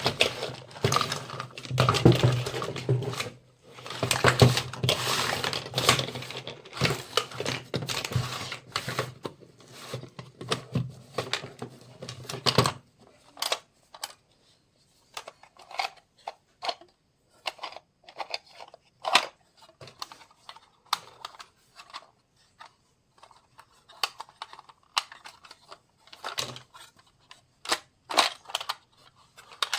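Plastic packaging of a toy kitchen set crinkling and tearing as it is unwrapped. About halfway through the handling stops, leaving scattered light clicks and taps of small plastic toy pieces being picked up and set down.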